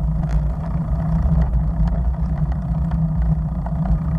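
Steady low rumble of wind buffeting a bicycle-mounted camera's microphone while riding, mixed with road noise.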